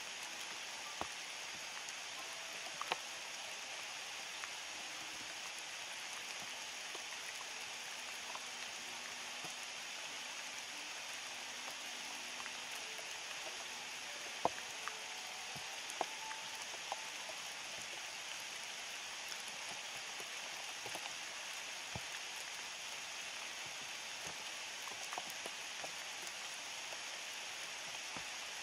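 Steady rain falling, an even hiss, with occasional single louder drop ticks scattered through it.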